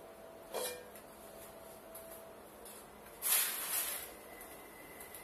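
Kitchen cooking noises with no speech: a light clunk under a second in, then a short hiss lasting under a second a little past the three-second mark. A faint steady high tone follows near the end.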